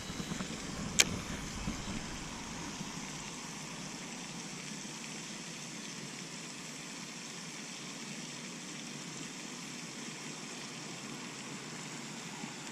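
Steady hiss of light rain falling, with one sharp click about a second in.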